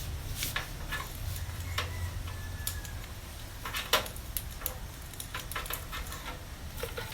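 Scattered clicks and light knocks of PC power-supply cables and plastic connectors being handled and pushed into place inside a computer case, the sharpest knock about four seconds in, over a steady low hum.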